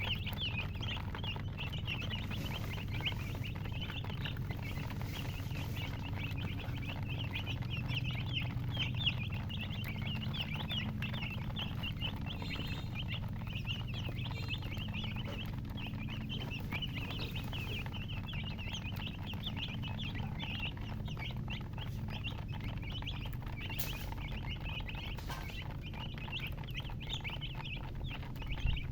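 A flock of baby chicks chirping continuously, many short high peeps overlapping, over a low steady hum.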